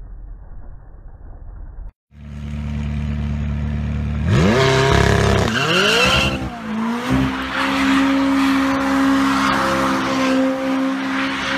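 A dull rumble, then after a brief cut a car engine running at a steady note. It revs sharply up and down, then is held at high revs over the loud hiss and squeal of spinning tyres, as in a burnout or drift.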